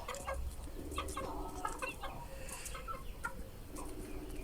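Chicken clucking softly, two short runs of low clucks, with scattered small ticks between.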